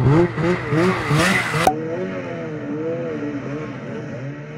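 Snowmobile engine revving up and down several times in quick succession. It cuts off abruptly about a second and a half in, leaving a quieter, slowly wavering engine hum.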